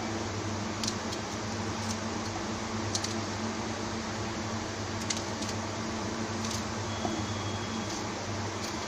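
Steady fan hum with a low electrical drone, and a few faint light taps.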